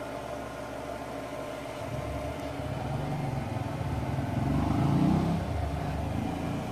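A motor vehicle's engine going past, growing louder to a peak about five seconds in and then easing off, over a steady hum.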